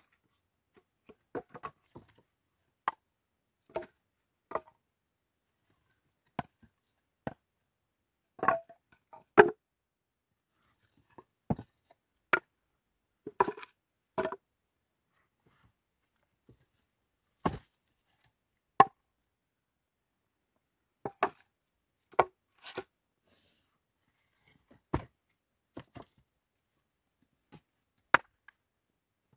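Flat wooden board offcuts knocking and clacking against each other as they are handled and stacked by hand. The knocks are sharp and irregular, single or in quick pairs, with quiet gaps between.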